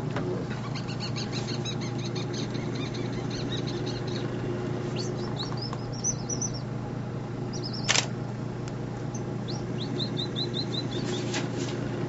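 Baby monkeys giving strings of short, high-pitched chirps in several bouts, over a steady low hum. A single sharp click about eight seconds in.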